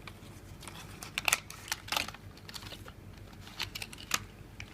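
Irregular light clicks and taps of a small plastic Bluetooth remote shutter and its packaging being handled as it is unpacked, with a small cluster about a second in and more near the end.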